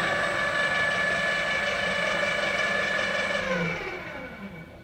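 WMW BT10/2 drill press's electric motor and variable-speed belt drive (CVT) running at its highest spindle speed with a steady whine. About three and a half seconds in it winds down, its pitch falling as it fades.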